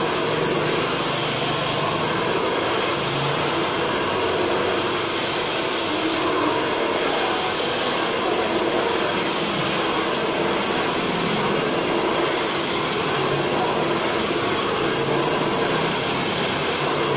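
Hair dryer running steadily, a continuous even whooshing blow of air with no change in pitch.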